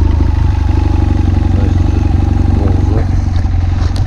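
BMW F800ST's parallel-twin engine idling steadily, with an even low pulse, moments after being started on the button on a cold morning.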